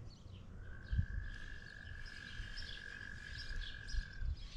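Lakeside ambience: scattered bird chirps, and a single steady high-pitched note held for about three and a half seconds, over low wind rumble on the microphone with a couple of soft thumps.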